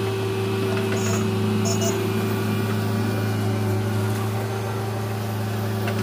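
Diesel engine of a Bull backhoe loader running steadily as the backhoe digs, a constant low hum with no change in speed.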